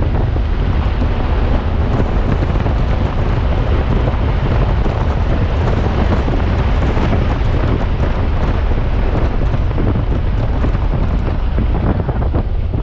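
Cabin noise of an Audi S5 coupe with a six-speed manual at track speed: a steady, loud rumble of engine, tyres and wind, with wind buffeting the microphone.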